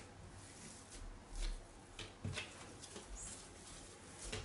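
Faint handling sounds of soft butter-and-semolina dough being picked up and pressed on a silicone pastry mat: a few light taps and soft knocks, roughly one a second, with a dull thud partway through.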